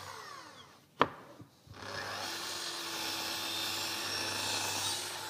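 Electric mitre saw spinning down after a cut, with one sharp knock about a second in; then the saw starts again and runs steadily through a pine board for about three seconds, dying away at the end.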